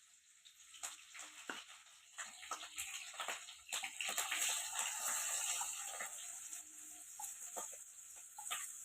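Chopped onion and green chili sizzling in hot oil with mustard seeds, a hissing fry with scattered crackling pops that swells to its loudest about halfway through and then eases.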